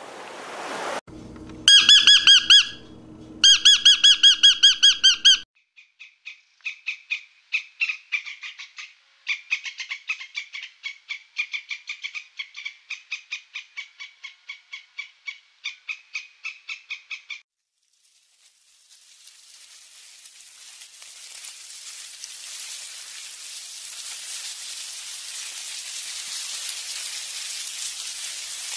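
A squirrel chattering: a long run of short, high chirps at about three to four a second. It is preceded by two loud pitched calls of about a second each, and followed after a pause by a hiss that slowly grows louder.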